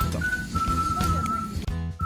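Background music: a whistled melody over a light rhythmic accompaniment.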